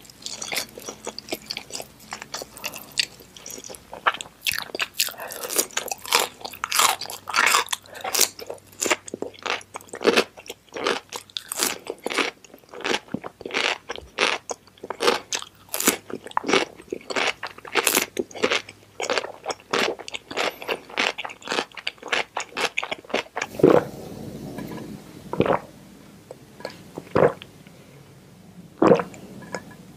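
Close-up ASMR chewing of spicy instant noodles: a fast, dense run of mouth clicks, thinning to a few separate louder ones over the last six seconds or so.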